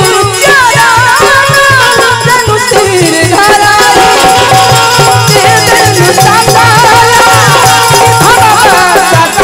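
Live Ramayan chaupai music: harmonium chords and a wavering melodic line, sung and played, over a steady dholak beat with rattling percussion.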